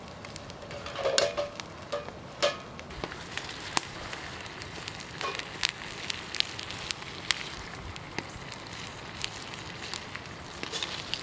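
Wood campfire crackling, with sharp pops scattered throughout. In the first few seconds a few heavier knocks with a brief ring, as a copper pot is set down on a steel mesh grill rack.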